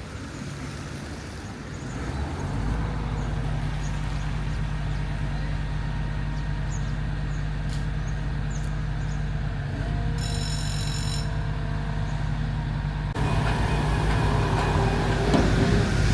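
A motor vehicle engine running steadily, getting louder about two seconds in. A brief high-pitched tone sounds for about a second near the middle, and the noise jumps suddenly louder about three seconds before the end.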